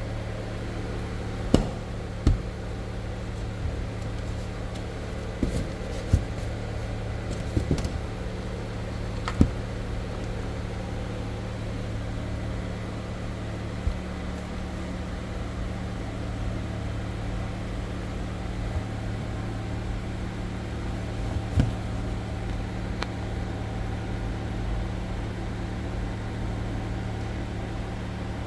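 Steady low mechanical hum, with a few sharp clicks and knocks as a tyre air compressor kit is handled, mostly in the first ten seconds and once more later on.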